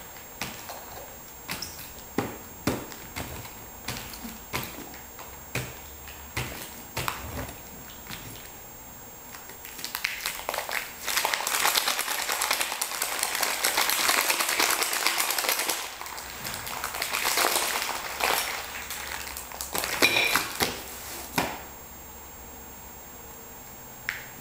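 Hands pressing clear adhesive mosaic transfer tape onto ceramic tiles: a string of sharp taps and knocks. About ten seconds in comes a long stretch of crackling and crinkling as the taped sheet of tiles is peeled up off its cardboard backing, ending with a few loud knocks as the tiles are set down.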